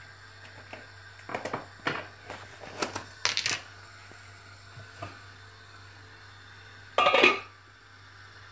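Kitchen handling noises: a run of small knocks and clinks of dishes and utensils on a stone countertop, then the loudest metal clank about seven seconds in as the stainless-steel pot lid is lifted off.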